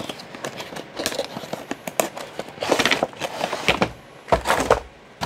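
Clear plastic clamshell packaging and plastic wrap crackling and clicking as the box is opened and the tray pulled out, in irregular bursts, the loudest about three and four and a half seconds in.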